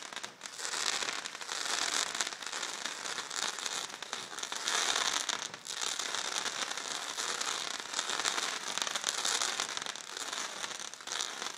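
Fireworks going off: a dense, unbroken stream of small pops and crackles, with two brief lulls.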